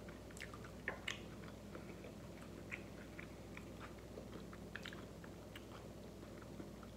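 A person chewing a mouthful of loaded taco fries: faint, scattered wet clicks and crunches, with two sharper clicks about a second in.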